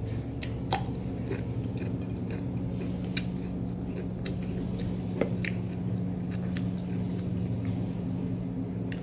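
A person chewing and biting food close to the microphone, with short crisp crunches scattered through, over a steady low hum.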